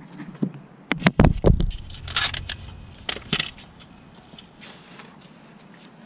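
Handling noises under a car during an oil change: a few sharp knocks about a second in as the camera is moved and set down, then scattered short scrapes and rustles.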